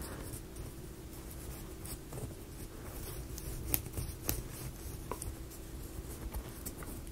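Laser-cut plywood model parts being handled: light rubbing with a few scattered sharp wooden clicks.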